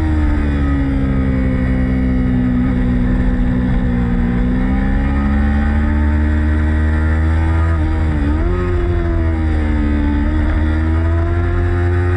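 Sport motorcycle engine running hard at high revs. Its pitch sags slowly and then climbs again, with a quick dip and recovery about eight seconds in as the throttle is eased and reopened or a gear is changed. A steady low rumble runs underneath.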